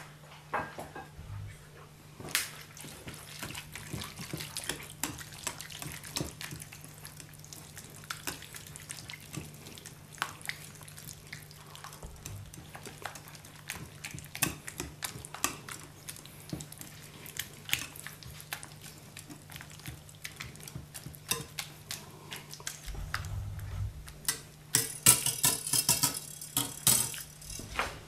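Potato, fried onion and beaten egg being stirred together in a glass bowl: wet squelching with many small clicks, growing louder and denser near the end. A faint steady low hum runs underneath.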